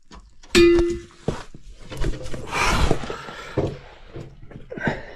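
A sharp metallic clank about half a second in that rings briefly, followed by scraping and several dull thumps.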